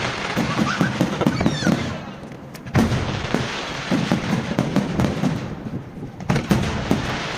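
Fireworks display: aerial shells bursting overhead, each burst a loud bang followed by a long run of dense crackling. Fresh bursts come about three seconds in and again near the end, with a short whistling glide a little over a second in.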